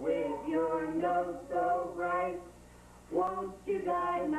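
Male and female voices singing a song together, with held notes and a short break about two and a half seconds in.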